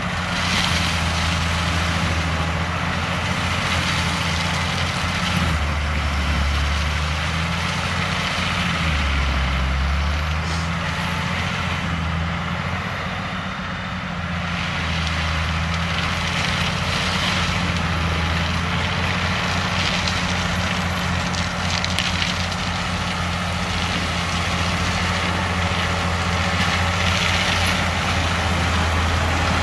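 Tractor diesel engine running under load, driving a tractor-mounted mulcher through dry brush. The engine's low drone shifts pitch up and down several times over the steady rush of the mulcher.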